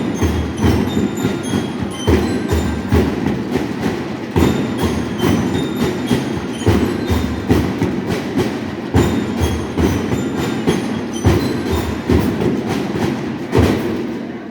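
Marching band (banda músico-marcial) playing: drums beat a steady, fast march rhythm of about three strikes a second, with short high bell-like notes of lyres ringing over it. The playing fades down as it ends.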